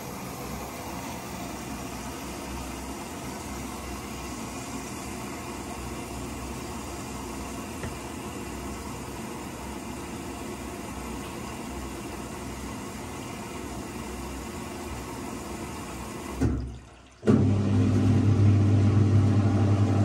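Steady rush of water filling the drum of an old Whirlpool front-loading washing machine. About 16 seconds in it breaks off, and the machine's drain pump starts with a loud low hum for about three seconds, pumping some water out.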